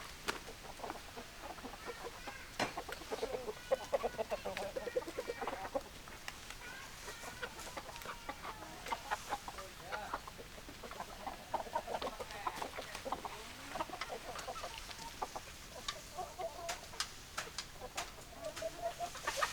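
Several chickens clucking in short, repeated calls that come in clusters throughout, with sharp clicks scattered among them.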